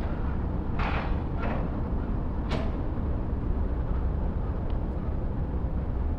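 Outdoor city ambience: a steady low rumble, with three short clicks in the first few seconds.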